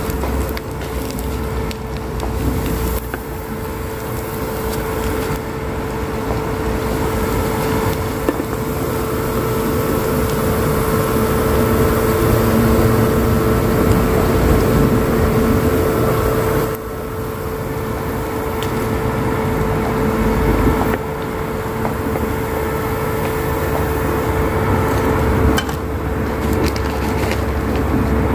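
Rengginang (sticky-rice crackers) frying in hot oil in a pan: a steady sizzle, with a steady hum underneath.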